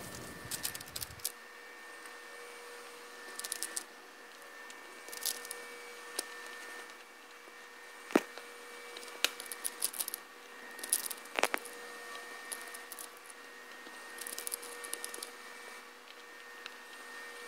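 Small clicks and rattles of homemade airgun slugs being handled in a plastic cup and pushed into the rotary magazine of a Hatsan BT65 air rifle, with two sharper clicks about eight and eleven and a half seconds in. A faint steady hum runs underneath.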